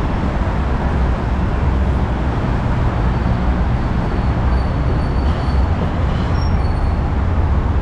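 Steady road traffic noise from a busy multi-lane road, heavy with low rumble.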